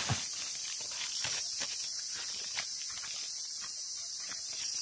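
Soft, scattered crackles and rustles of dry leaf litter being stepped on and handled, over a steady high hiss.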